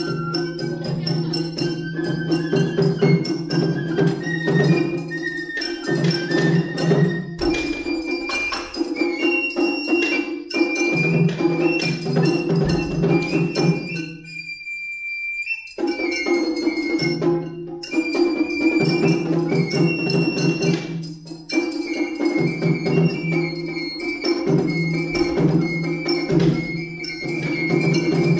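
Funabashi-ryū matsuri bayashi: a shinobue bamboo flute plays a high melody over rapid shime-daiko and ō-daiko drumming. About halfway through, the drums stop for a moment while the flute holds one note, then the drumming comes back in.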